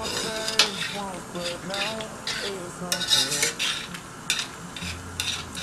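Spoon stirring curry gravy in a stainless steel pot, scraping and clinking against the pot's sides and bottom over and over, with some brief squeaky scrapes.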